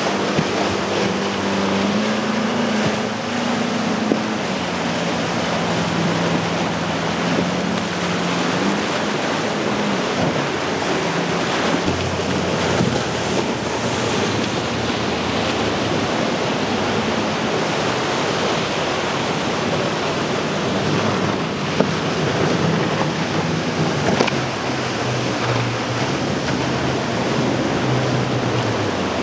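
Yamaha outboard motors droning as boats run through the inlet, the engine pitch rising and falling as each boat passes. It sits over a steady wash of surf and wind buffeting the microphone.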